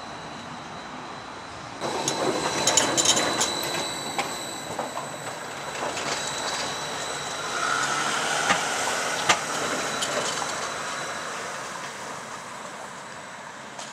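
Red articulated Flexity low-floor tram passing on a curve: it rolls in about two seconds in with rising wheel-on-rail noise and sharp clicks and clatter over the track, with a few more clicks in the middle, then fades as it moves away.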